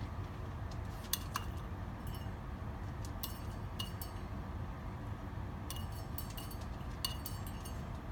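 A hard dish clinking several times in short, ringing knocks while a fennec fox eats superworms from it, over a steady low background rumble.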